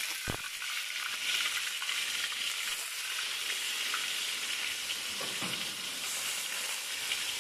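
Fish sizzling in hot oil in a steel wok, a steady frying hiss, with a short knock just after the start.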